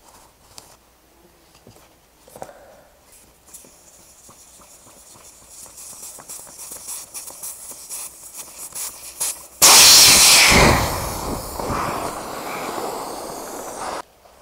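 Air escaping from an inflatable tent's emergency deflation valve as it is opened, letting down the tent's air beams: a faint hiss that builds over several seconds, then a sudden loud rush of air about two-thirds of the way in that cuts off abruptly near the end.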